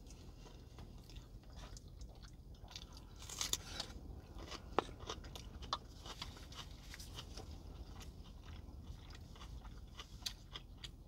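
Close-miked chewing of chicken and stewed cabbage, with many small sharp mouth clicks and crunches, over a steady low hum.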